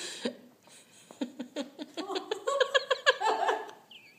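A person giggling in quick short bursts, louder and higher from about halfway through.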